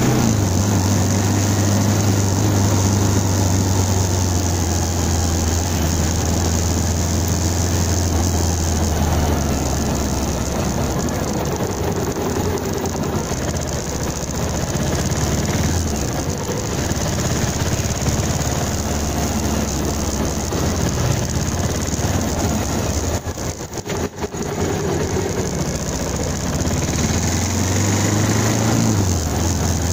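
Bajaj Pulsar 220's single-cylinder engine running at low road speed, a steady low drone that weakens after about nine seconds and returns near the end, with a brief drop in level about three-quarters of the way through.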